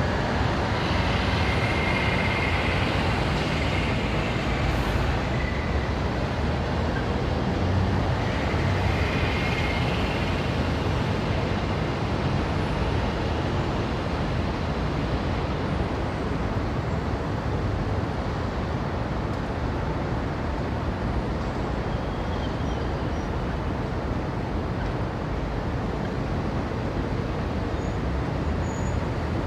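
Busy Indian city street traffic: the steady mixed running of cars, motorbikes and auto-rickshaws passing, with a couple of brief higher-pitched tones in the first ten seconds.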